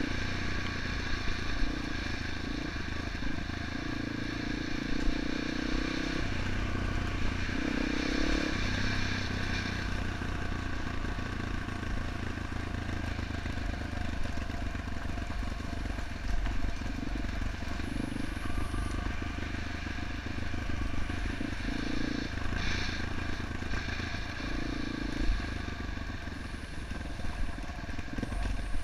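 Yamaha XT250's single-cylinder four-stroke engine running under way, its note shifting up and down as the rider works the throttle, with scattered knocks and rattles from the bike going over the rough dirt trail.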